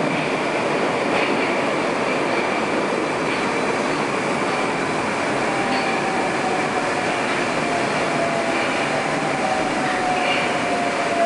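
Moscow Metro 81-760/761 'Oka' subway train running through a tunnel, heard from inside the car: a steady rumble of wheels and running gear. In the second half a faint whine slowly falls in pitch as the train slows on its approach to the station.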